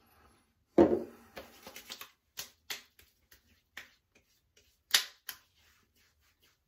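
Hands patting and slapping aftershave splash onto the face and neck: a string of quick, sharp smacks, the loudest about five seconds in. One short loud sound comes first, about a second in.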